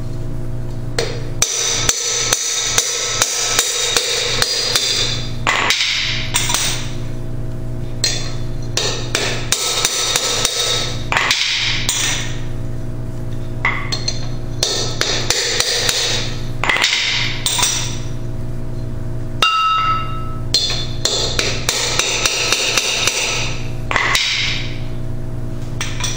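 Hammer blows on a driver rod, driving a new bushing into the bowl of a Berkeley jet pump. The strikes come in several runs of rapid metallic blows with short pauses between them.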